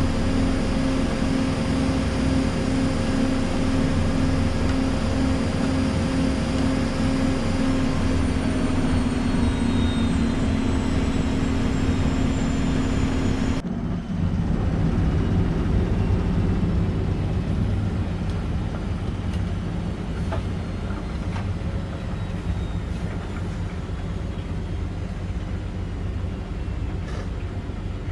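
Washing machine on a high-speed spin, its motor whine and drum hum steady with a pulsing tone, the whine starting to fall in pitch after about eight seconds. About halfway through the sound changes abruptly to a steadier, lower machine hum with occasional light clicks.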